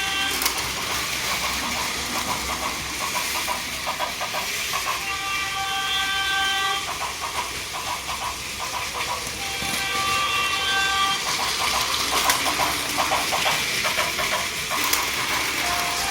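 Plarail toy trains running on plastic track, a dense steady rattle of small wheels and track joints, with a few stretches of a pitched electronic tone from the layout's sound accessories.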